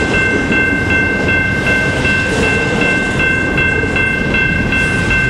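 Double-stack intermodal train's container well cars rolling past close by: a loud, steady rumble of steel wheels on rail. Several steady high-pitched tones ring through it, some pulsing a few times a second.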